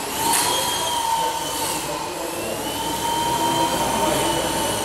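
Esky Honey Bee V2 micro RC helicopter in flight, its electric motor and rotors giving a steady high whine. The pitch sags briefly about two seconds in and then comes back up as the rotor speed changes.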